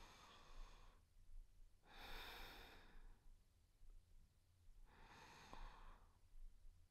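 A woman breathing softly and slowly close to the microphone, ASMR-style: three quiet breaths a couple of seconds apart, each about a second long.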